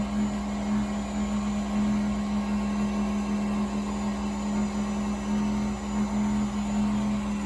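Makino vertical CNC milling machine running under power, a steady hum with a slight regular pulsing and no change in pitch.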